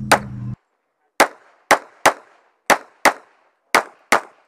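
Semi-automatic pistol fired at close range: seven sharp shots, mostly in pairs about a third of a second apart, each with a short ringing tail. A steady hum cuts off about half a second in, just before the shots.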